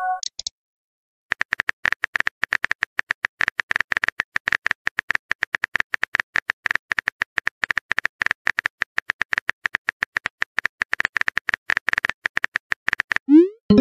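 Phone keyboard typing clicks, a fast, even run of taps that goes on for about twelve seconds, then a short rising whoosh near the end as the message is sent.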